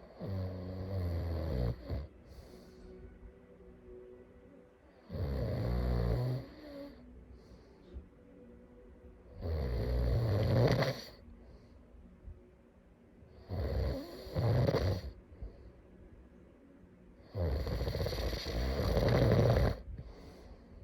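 A sleeping person snoring: five loud snores about four seconds apart, each lasting one to two seconds, with quiet gaps between.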